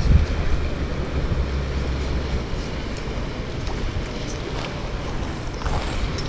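Steady low outdoor rumble under a wash of noise; the deepest part of the rumble drops away about two and a half seconds in.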